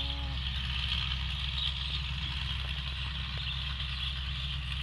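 Combine harvester engine running steadily at an even pitch, with a steady higher rushing noise above it.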